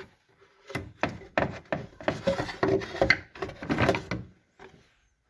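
A quick run of knocks and clunks as the just-removed transmission cover and tools are handled and moved about, then quiet near the end.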